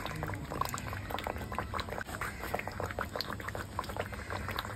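Thick banana halwa bubbling and popping in ghee in a kadhai on the stove, with many small irregular pops throughout.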